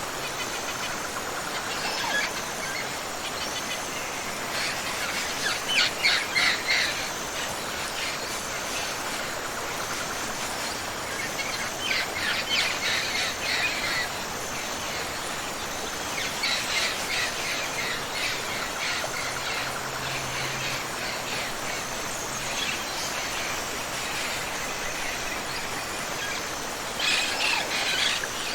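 Steady rush of a tropical waterfall and river, with birds calling in short bursts several times over it.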